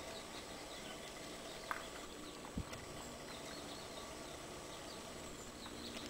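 Faint, scattered high chirps of small birds over a steady background hiss, with a light tap a little under two seconds in and a soft thump shortly after.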